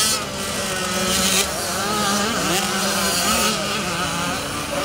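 Motocross motorcycle engines running and revving, their pitch rising and falling as the bikes accelerate and ease off.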